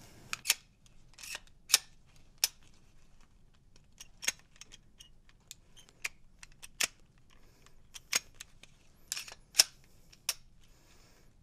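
Pistol being worked by hand in an attempt to strip it: about a dozen sharp, separate clicks and clacks of the slide and frame, spaced unevenly. The pistol won't come apart.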